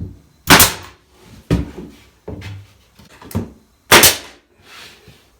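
Pneumatic nail gun firing twice, about three and a half seconds apart, each shot a sharp loud crack, nailing cedar corner trim in place. Lighter knocks come between the two shots.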